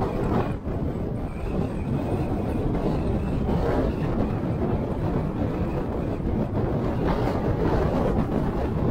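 Car driving: steady road noise, mostly low rumble of tyres and engine, with brief swells about three and a half and seven seconds in.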